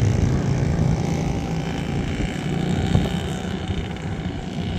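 Engine and propeller of a weight-shift microlight trike droning steadily in flight, slowly fading.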